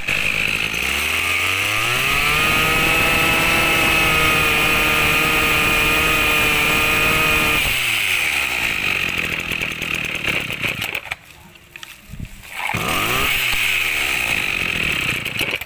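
Maruyama BIGU KC 260 brush cutter's 26 cc engine fires up and revs to a high, steady speed for several seconds, then falls back toward idle. Near the end it drops away briefly, then picks up and revs again. It catches readily on the pull.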